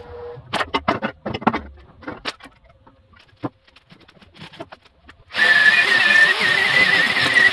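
A few sharp knocks and clanks of metal being handled, then about five seconds in an electric angle grinder starts and grinds on the aluminum step with a loud, high whine.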